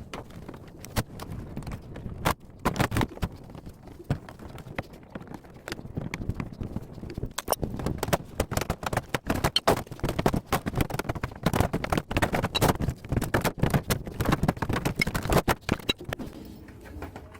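Many irregular knocks and clatters, busier from about seven seconds in: a discarded top-loading washing machine being taken apart by hand.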